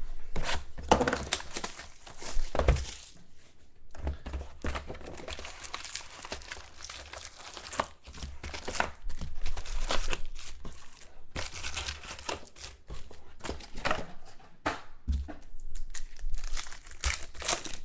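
Plastic wrap and foil packs on sealed boxes of trading cards being torn open and crinkled by hand: irregular rustling and crackling with scattered sharp clicks and knocks.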